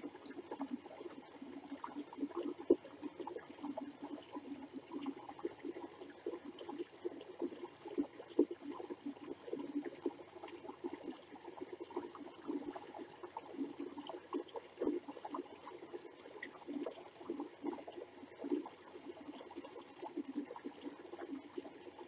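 A small rocky creek trickling and burbling, a continuous uneven babble of water that is fairly quiet.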